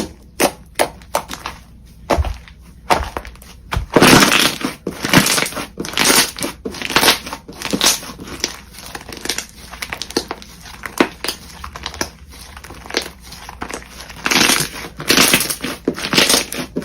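Slime being squeezed and pressed by hand, giving irregular crackles, pops and squishes with no steady rhythm, denser about four seconds in and again near the end.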